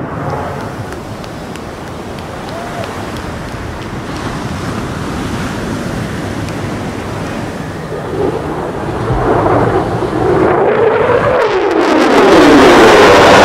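Fighter jet engine roar: a steady distant rush that begins to swell about eight seconds in and grows loud near the end as the jet closes in, with a sweeping, phasing quality as it passes low.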